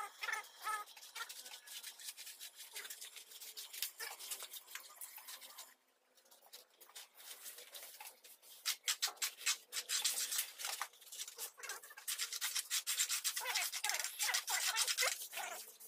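Shovels scraping through sand-and-cement mortar on a concrete floor: gritty scrape strokes, sparse at first, with a short lull about six seconds in, then a dense run of strokes from about halfway through.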